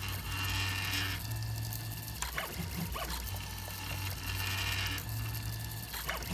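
FDM 3D printer printing: the stepper motors whine and whir as the print head moves, the tone shifting every second or so as each move changes, over a steady hum from the cooling fans. A few light clicks come through.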